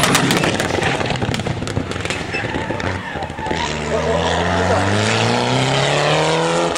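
Mitsubishi Lancer Evolution rally car passing at speed, with crackling and popping over the first three seconds. Its turbocharged four-cylinder engine then revs up in one long rising pull as the car accelerates.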